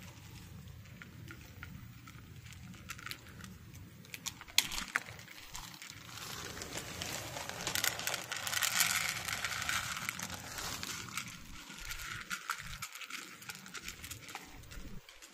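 Cats crunching dry kibble from a plastic dish, a scatter of small clicks. From about six seconds in, a plastic zip-lock bag crinkles for several seconds as more kibble is poured from it onto the dish.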